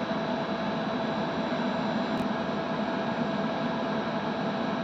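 Steady hiss and hum inside a moving ambulance's cabin, with a faint constant whine.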